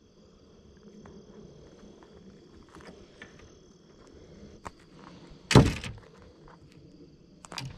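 Insects buzzing steadily at a high pitch, with small clicks from hands handling a hollow-body frog lure and its line. One sharp thump comes a little past halfway, and a lighter knock near the end.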